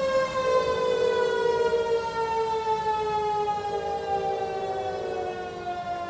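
Federal Signal Model 1 electromechanical siren winding down, its wail falling slowly and steadily in pitch. Other outdoor warning sirens hold steadier tones underneath.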